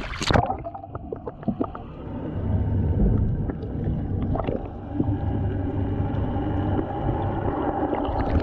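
A tripletail splashing hard at the surface as it is lowered into the sea on a lip gripper. The sound then turns muffled, heard from under the water: a few bubbly clicks, then a low steady hum with faint steady tones.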